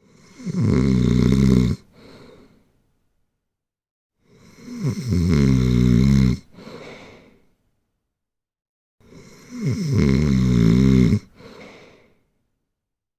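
Snoring: three snores about four and a half seconds apart. Each is a loud snore lasting about a second and a half, followed by a shorter, quieter one.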